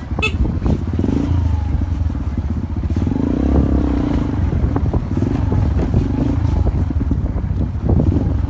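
Honda XR125's single-cylinder four-stroke engine running while riding a rough dirt track, its note rising and falling a few times.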